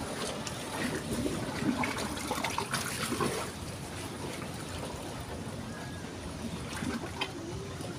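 River water trickling and lapping, with scattered small clicks, a little busier in the first few seconds.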